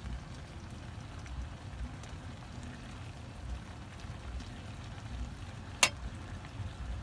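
Eggplant and pork with soy sauce simmering steadily in an aluminium wok. A metal ladle clinks once against the wok near the end.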